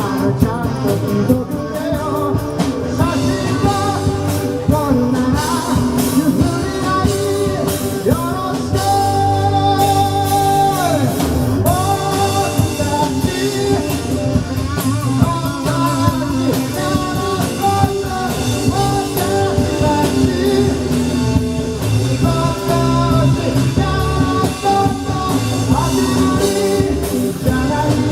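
Live rock band playing a song with a sung lead vocal, over electric guitar and a drum kit.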